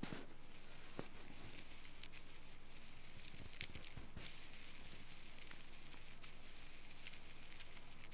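Faint scratching and soft clicks of a thin wire ear pick working in the ear canal, heard close up over a steady low hum and hiss, with a few sharper ticks about a second in and again around three and a half to four seconds.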